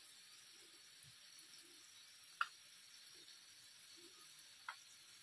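Near silence: room tone, broken by two brief light taps a little over two seconds apart.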